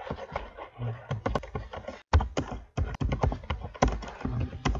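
Typing on a computer keyboard: a quick, uneven run of keystrokes with a short pause about two seconds in.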